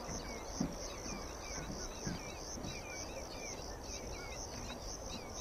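An insect chirping in a steady high-pitched pulse, about three pulses a second, while small birds give short chirps over and over, over a low outdoor rumble. A soft low knock comes about half a second in.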